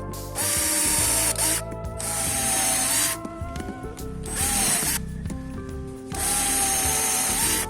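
Power drill running in several separate bursts of about half a second to a second and a half each, with background music.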